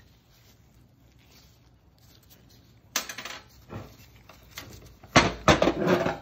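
Metal parts of a John Deere Gator drive clutch clinking and rattling as they are handled: a sharp clink about three seconds in, a lighter knock, then a louder burst of rattling near the end.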